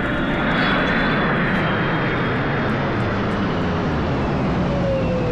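An aircraft's engines running loud and steady as it flies past. Near the end, a tone in the engine noise slides down in pitch.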